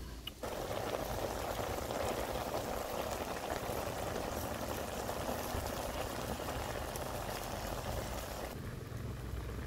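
Frogs and red cabbage boiling in a wok over a wood fire: a steady bubbling hiss that starts suddenly just after the start and drops away near the end.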